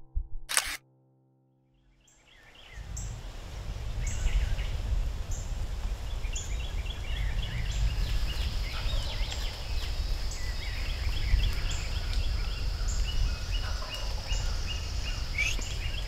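Music cuts off about a second in, then after a moment of silence a dawn outdoor chorus fades in: many birds chirping, one repeating a short high note about once a second, over a steady low rumble.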